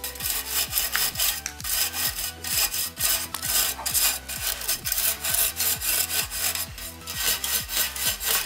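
A hand brush scrubbing caked dust and hair out of the blades of a furnace's squirrel-cage blower wheel, in rough, rapid strokes a few times a second.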